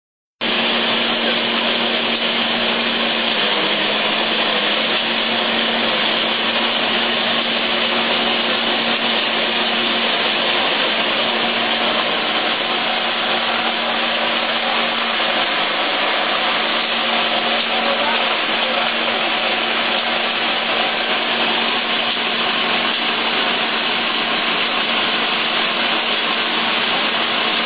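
Corn peeling machine running steadily: an even mechanical rush with a constant low hum underneath.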